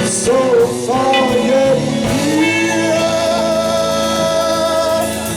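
Live psychedelic rock band playing, with singing and electric guitar. A wavering pitched line gives way about two seconds in to a long held chord.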